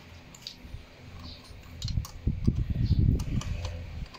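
Open-end wrench turning a nut on a motorcycle's clutch cable adjuster: scattered light metallic clicks, with a cluster of dull low thuds about two to three seconds in.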